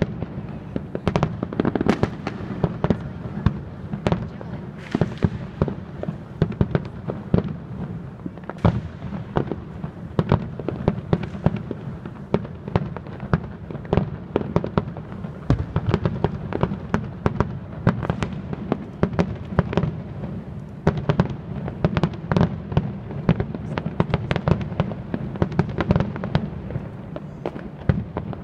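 Aerial fireworks display: shells bursting in a rapid, continuous series, several sharp bangs a second over a steady rumble.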